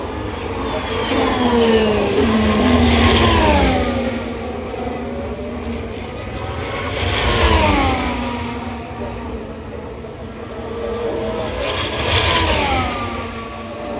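Three Formula 1 cars, each with a 1.6-litre turbocharged V6 hybrid engine, passing at speed one after another, about four to five seconds apart. Each is a high engine note that swells and then drops in pitch as the car goes by.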